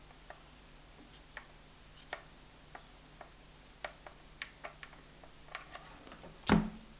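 Faint, irregular light clicks of a hot glue gun and fused plastic beads being handled while glue is run along the edge of a bead piece, then one dull thump near the end.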